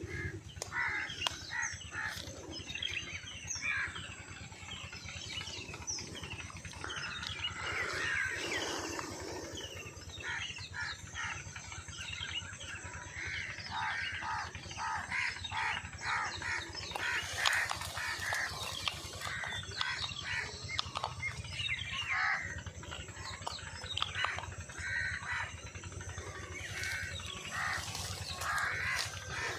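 Many birds calling at once: crows cawing among the short chirps of other birds.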